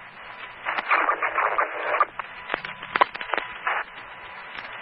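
Fire-department two-way radio channel heard through a scanner: a burst of static, then several sharp mic-key clicks in quick succession, as radios key up briefly for an electronic roll call.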